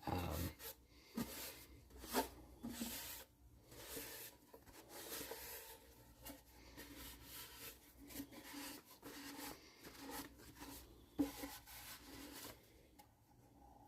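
Faint handling sounds from a wooden ukulele body being turned over and inspected: light rubbing and scattered soft knocks and ticks, one slightly sharper knock about eleven seconds in.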